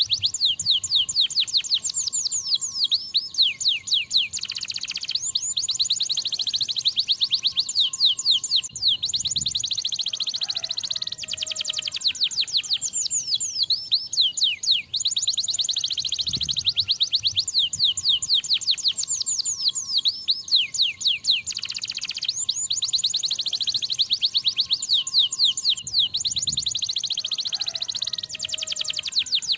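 Domestic canary singing continuously: long, rapid rolling trills of fast down-sweeping notes, changing speed from tour to tour with only brief breaks.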